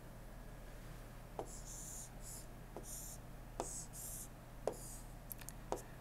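A stylus writing on a tablet screen: short scratchy strokes and several sharp taps as the pen touches down, over a steady low electrical hum.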